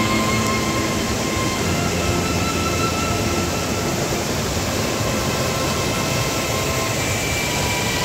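Mountain river rushing and splashing over rocks and small cascades: a steady, even rush of water.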